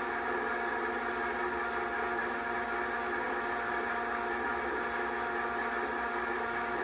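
Film projector running: a steady mechanical whir with a hum of several steady tones that does not change.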